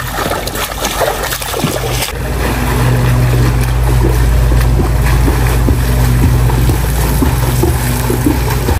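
An engine running steadily, a low drone with wind noise over it; the drone gets louder about two seconds in.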